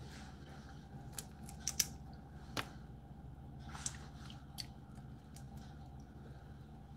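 Cooked blue crab shell being broken apart by hand: several sharp cracks and snaps over the first five seconds, the loudest about two seconds in, over a low steady hum.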